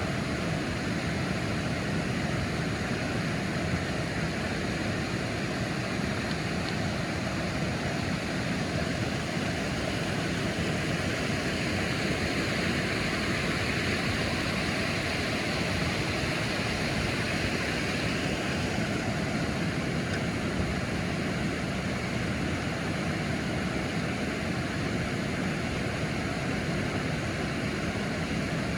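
Steady roar of falling water from a waterfall, unbroken and even throughout.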